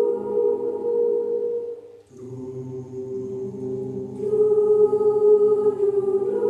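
University student choir singing long held chords without words. The chord fades away about two seconds in, a new chord enters just after, and the sound grows fuller and louder about four seconds in.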